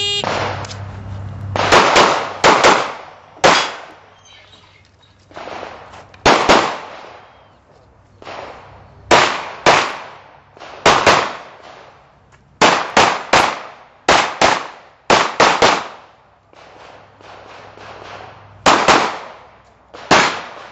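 Handgun shots fired during a timed practical-shooting stage. A sharp shot-timer start signal comes right at the start, then about twenty shots, mostly in quick pairs (double taps on each target), with short pauses as the shooter moves between positions.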